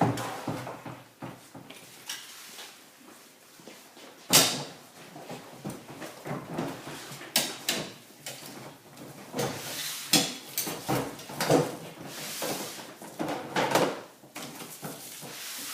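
Collapsible aluminum strut frame of a pop-up trade show backdrop being folded up by hand: irregular clicks, knocks and rattles of the struts, the sharpest knock about four seconds in, with a longer scraping rustle about twelve seconds in.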